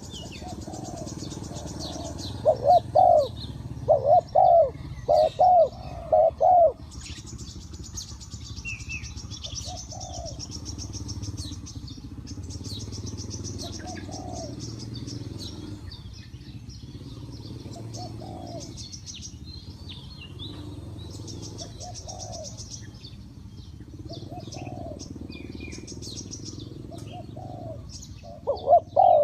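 Spotted dove cooing: loud coos in quick groups through the first seven seconds, then fainter single coos every few seconds, and loud coos again near the end. Small birds chirp high above throughout.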